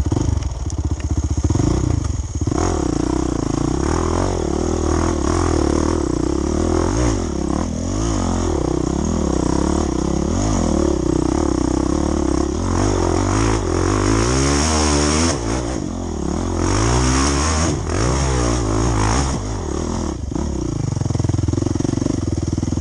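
Off-road motorcycle engine working up a slick, root-covered climb, revving up and down again and again as the throttle is worked, with knocks from the bike over the roots.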